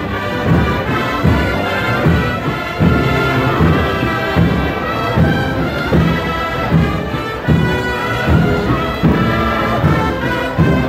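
Brass band playing a processional march with a steady beat.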